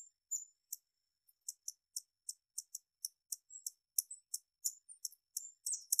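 Hummingbird giving a run of sharp, very high chip notes, about three or four a second, coming faster near the end.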